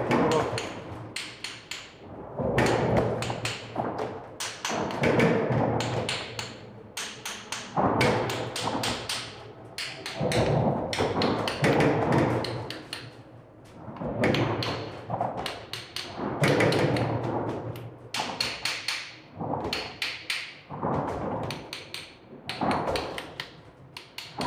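Hammer tapping on the steel bolted connections of a bridge's expansion joint: many sharp knocks in quick groups, a test by ear for a loosened bolt. Between the groups, a rumble swells and fades as traffic crosses the bridge overhead.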